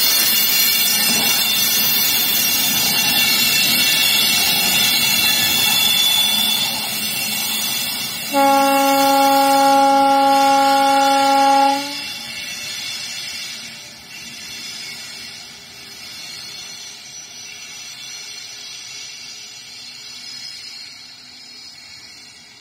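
WAG9 HC electric locomotive running light past at close range, with steady rushing rail and running noise. About eight seconds in comes one steady horn blast lasting about three seconds that cuts off sharply. The noise then fades as the locomotive moves away.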